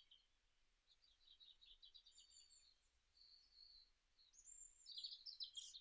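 Faint birdsong: small birds chirping and trilling in short high phrases, thinner in the middle and busiest near the end.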